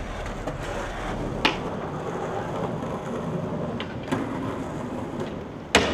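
Skateboard wheels rolling on concrete, with a few sharp clacks from the board as a trick is popped and landed. The loudest is a hard smack near the end.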